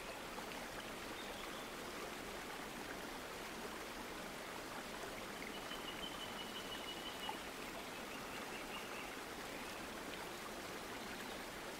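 Faint steady hiss: the recording's background noise floor, with a faint high whine coming and going in the middle.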